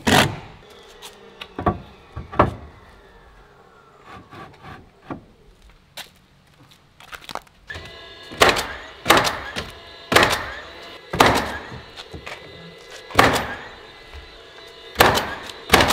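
DeWalt battery-powered coil roofing nailer driving nails through Versetta Stone siding panels, sharp single shots. Three come early on, then about eight more in quick succession from about eight seconds in.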